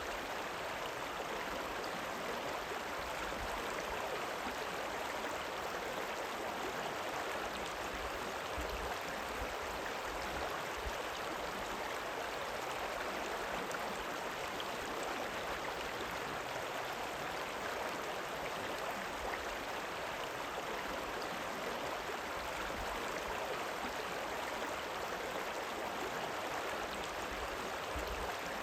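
River water rippling in a steady, unbroken flow.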